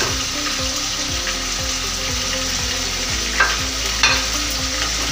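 Chicken pieces sizzling as they are tipped into hot frying masala in a metal pot and stirred with a spatula, with two short scrapes of the spatula against the pot about three and a half and four seconds in.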